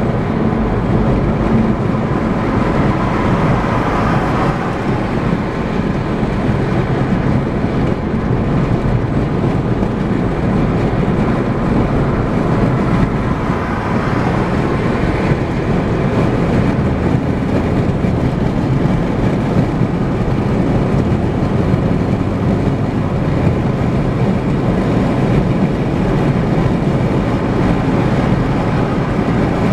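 Steady road noise of a car cruising at highway speed, tyres on pavement and engine running, heard from inside the cabin.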